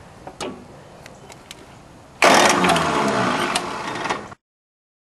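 Electric starter cranking the Yanmar YM1401D tractor's three-cylinder diesel, which is being restarted after air was bled from its fuel filter and injector lines. A few light clicks come first, then the cranking starts suddenly about two seconds in and cuts off abruptly about two seconds later.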